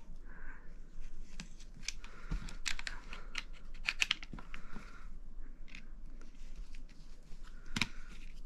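Irregular small clicks, taps and short scrapes of an airsoft shotgun's hand stop and rail being handled and fitted, with one sharper click near the end.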